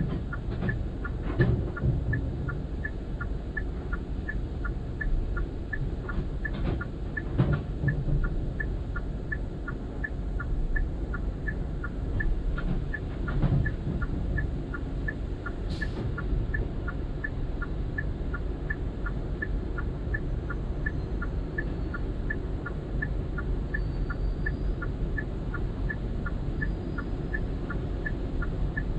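Automatic tunnel car wash heard from inside the car: a steady rumble of water spray and brushes working over the body, swelling into a few heavier thumps. A small high tick repeats evenly, about twice a second.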